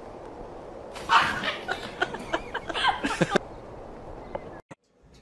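A person laughing in a run of short giggles for about two seconds, over steady background room noise.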